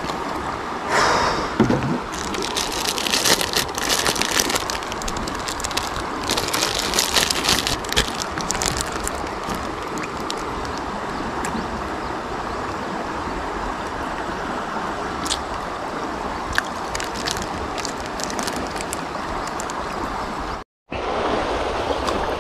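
Plastic drink bottle and plastic snack wrapper being handled: a short burst as the cap is twisted about a second in, then crinkling and crackling for several seconds. Under it runs a steady rushing outdoor noise. The sound cuts out briefly near the end.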